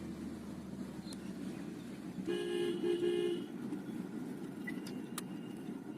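A car horn toots twice in quick succession a little over two seconds in, over the steady low rumble of a car driving.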